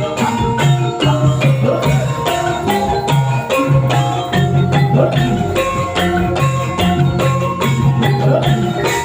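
Javanese kuda lumping gamelan music: metallophones play a short repeating melody over regular, even drum strokes.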